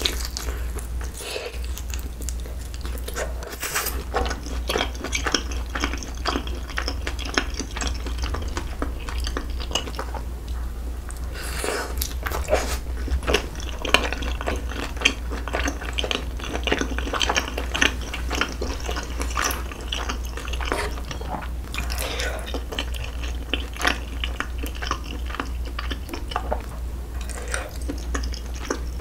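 Close-miked chewing of a fried rice cake and sausage skewer (sotteok-sotteok), with many small wet clicks and crackles of the mouth and food, over a steady low hum. Near the end, a fork touches the dish.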